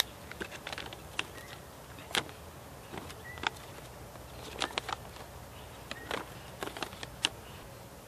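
A folded paper pocket guide being unfolded and handled, with irregular crisp crackles and rustles of the paper.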